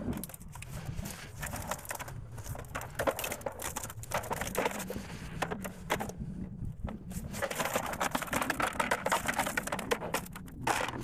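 Mesh of a fishing keepnet rustling and crackling as it is handled and the catch is shaken out into a plastic bucket, with a short lull a little past halfway.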